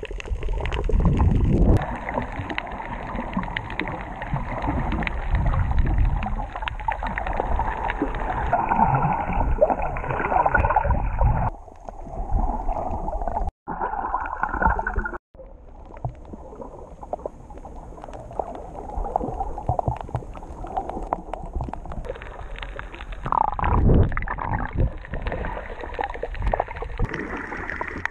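Muffled underwater sound through a camera's waterproof housing: water sloshing and gurgling with small bubbling crackles. Two brief dropouts break it about halfway through.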